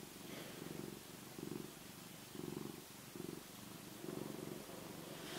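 Domestic cat purring softly, the purr pulsing in an even rhythm of breaths in and out.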